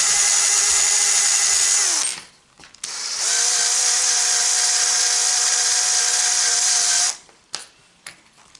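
Small drill with a sanding-disc attachment running in two bursts, about two and about four seconds long, its motor whining steadily over a hiss of the disc sanding wood. The first run winds down about two seconds in; the second starts about a second later at a slightly higher pitch and stops near the end.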